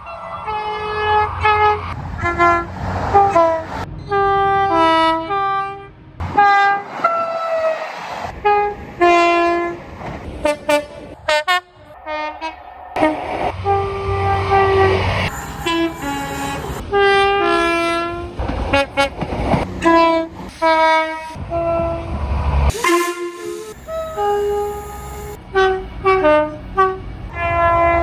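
A rapid string of UK train horns, one clip after another: many short two-tone blasts stepping between a higher and a lower note, with a few longer held notes and a low rumble of the trains underneath. The sound cuts off abruptly between clips, with brief drops about six and a half, eleven and a half and twenty-three seconds in.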